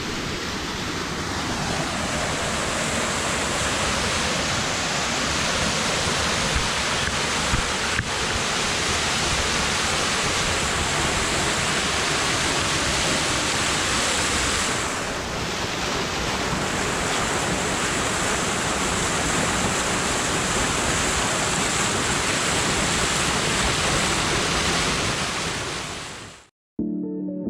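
Waterfall rushing steadily. It fades out about a second before the end, and soft music with a plucked string begins.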